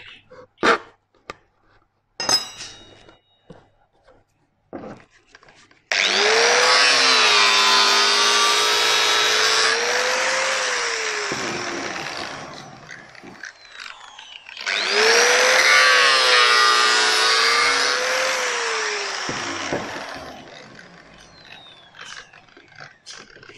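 Electric angle grinder run twice, about five seconds each, grinding away the edge of a folded aluminium cladding panel. Its motor whine rises as it spins up and falls away as it winds down. A few sharp taps and scrapes of a blade on the panel come first.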